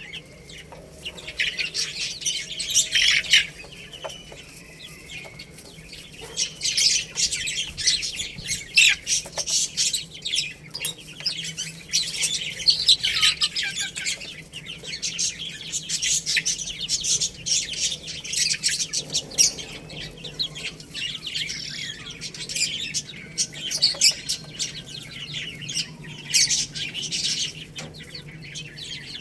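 A group of baby chicks peeping continuously, many short high-pitched chirps overlapping in irregular flurries.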